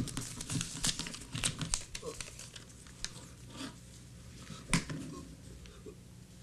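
Rustling and crinkling handling noise with many scattered soft clicks, over a low steady hum.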